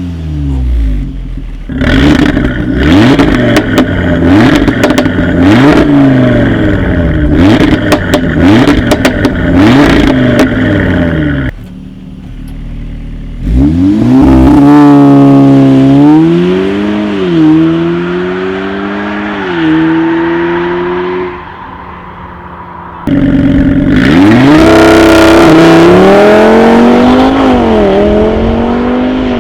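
Turbocharged Audi engine revved repeatedly while standing still, each blip rising and falling quickly with sharp exhaust crackles, then settling to idle. The car then pulls away hard twice, the engine pitch climbing through the gears with a drop at each upshift.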